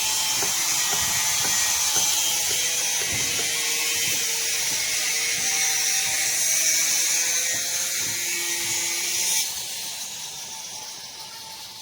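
Steady mechanical rattling and rasping with scattered clicks, dropping off sharply about nine seconds in and then fading away.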